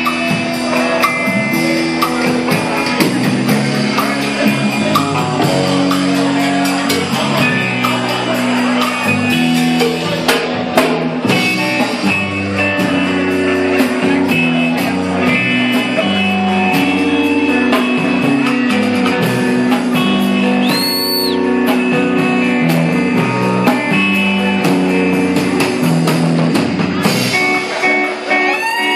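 Live rock band playing: electric guitar over a drum kit, loud and continuous.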